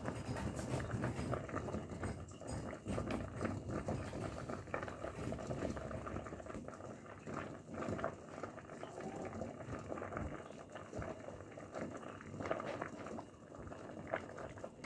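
Pot of spaghetti, carrot and potato pieces and cinnamon boiling in water: a steady, dense bubbling with many small pops.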